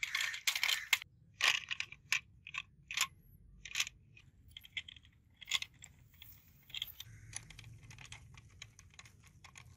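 Stones crunching and clicking under the wheels of a toy-scale model Humvee as it is pushed over loose gravel. The crunches are irregular, come thick and fast for about the first four seconds, then become sparser.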